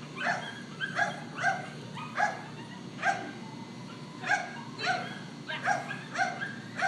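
Schnauzer barking repeatedly in short, sharp barks, about two a second.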